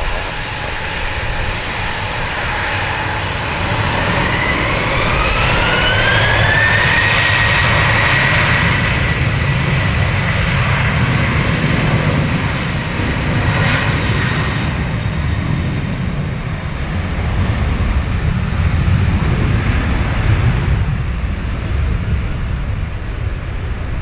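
Boeing 737-800's CFM56-7B24 turbofans spooling up for takeoff: a whine rises a few seconds in, then holds as a steady high tone over a low rumble, fading after about fifteen seconds as the jet moves off.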